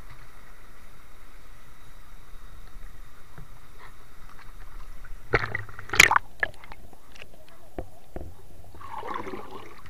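Underwater sound picked up by a submerged camera in a river: a steady hiss with scattered clicks and knocks, a cluster of loud knocks about five to six seconds in, and a short watery burst near the end.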